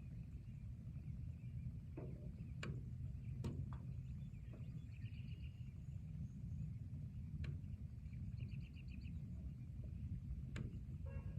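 Forest and rain ambience: a steady low rumble with a few sharp drip-like taps, and twice a short, rapidly pulsed call.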